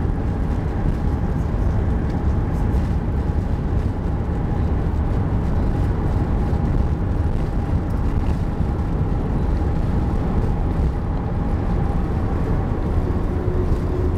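Steady cabin noise inside an Airbus A380 taxiing after landing: a low rumble with a faint steady whine running through it, and a second, lower hum joining near the end.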